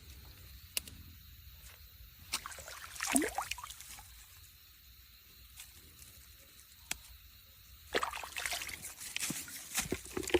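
Water sloshing and splashing in irregular bouts, heaviest near the end, with a few sharp clicks.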